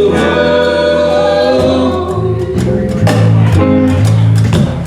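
Live country song: acoustic guitar strumming under held sung notes, between two vocal lines of a duet.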